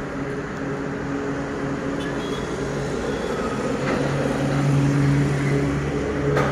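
Steady drone of road traffic with engines running. A heavy truck's engine hum grows louder from about four seconds in, and there is a short click near the end.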